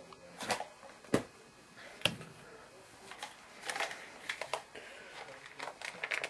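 Handling noise from plastic toys: three sharp clicks or knocks in the first two seconds, then lighter clicking and rustling.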